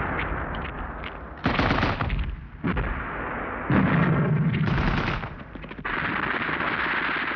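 Battle sound of machine-gun fire and gunshots, with sudden loud bursts about a second and a half in, again near three seconds and near four seconds in.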